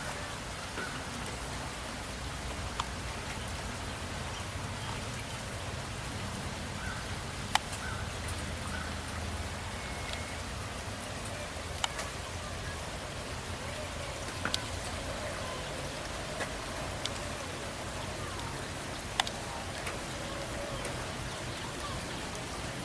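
Steady rain falling, with scattered single drops ticking sharply on a hard surface.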